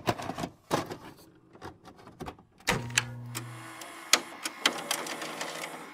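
A run of sharp mechanical clicks and knocks, irregularly spaced, with a short steady hum about three seconds in.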